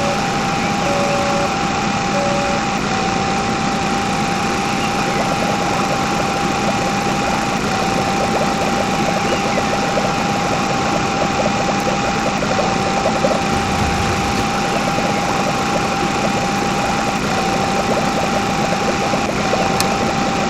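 An engine runs steadily under load with a constant high whine on top. A short beep repeats about once a second for the first couple of seconds.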